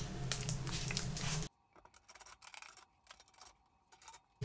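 A faint steady low hum with light scratchy handling noises, which cuts off abruptly about a second and a half in, leaving near silence for the rest.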